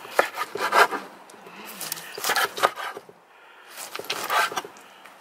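Long kitchen knife sawing through a roasted pork neck with a browned crust on a wooden cutting board: scratchy back-and-forth strokes of the blade, in three short spells of cutting, the edge scraping the board.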